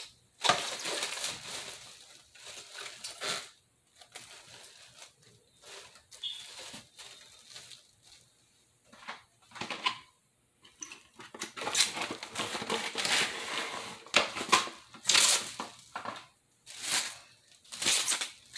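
Clear plastic food wrap crinkling and rustling in irregular bursts as it is handled over a pot. The bursts are busy at first, sparse in the middle, and pick up again in the second half.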